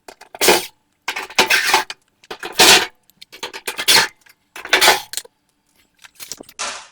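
Repeated short bursts of metallic clanking and rattling, about six of them, from the dryer's sheet-metal parts and screws being handled as the dryer is taken apart.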